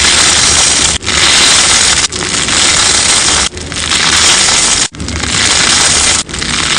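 Crunchy sponge slime being squeezed and pressed close to the microphone: a loud, dense crackling and scraping noise in pushes of about a second, with short breaks between them.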